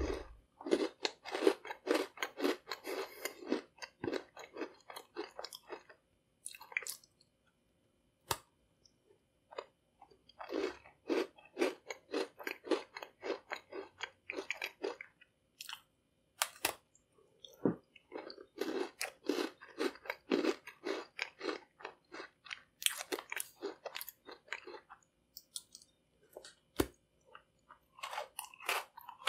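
A person chewing a decorated sugar cookie with icing and sprinkles, heard up close. The chewing comes in runs of quick chews with pauses of a few seconds between, a few single sharp clicks fall in the gaps, and a fresh bite starts another run near the end.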